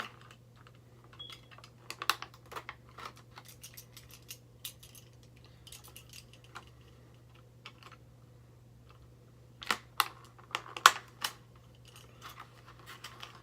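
Cardboard box and plastic blister packaging of a toy being handled and worked open: scattered small clicks, taps and crinkles, with a louder cluster of clicks about ten seconds in.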